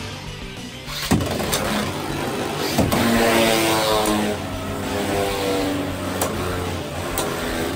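Two Beyblade X spinning tops launched into a large plastic stadium, whirring as they spin, with several sharp clicks as they strike each other.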